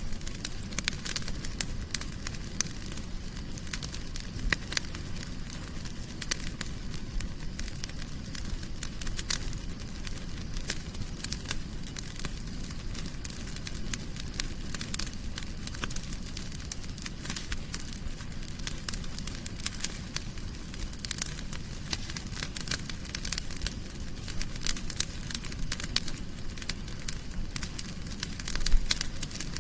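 Wood fire in a fireplace crackling: irregular sharp snaps and pops over a low steady rumble of the flames, with a louder flurry of pops near the end.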